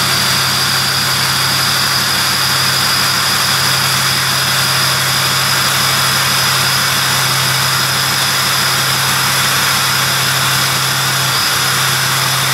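Ford F-350's 6.0L Power Stroke V8 turbo-diesel idling steadily through a 4-inch straight-pipe exhaust with no muffler or catalytic converter. A low drone runs with a steady high whistle over it.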